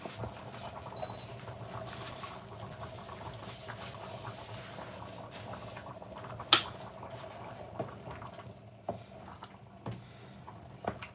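Pot of vegetable soup simmering on an induction hob under a steady low hum, stirred with a wooden spoon. A brief high beep comes about a second in, and a sharp knock, the loudest sound, about six and a half seconds in, followed by a few lighter taps.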